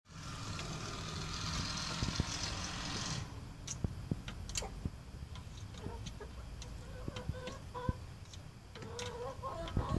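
Hens clucking in short calls, mostly in the second half, among scattered sharp taps of beaks pecking at a hard surface. A steady hiss fills the first three seconds and cuts off suddenly.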